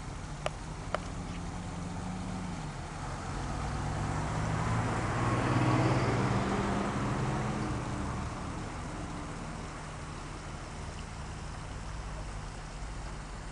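A motor vehicle passing by: its engine sound grows, peaks about six seconds in, then fades away.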